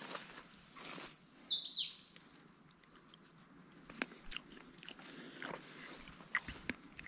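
A songbird sings one short phrase of high, falling whistles, ending in a longer downward slur, within about the first two seconds. After that there are only faint, scattered clicks and crackles.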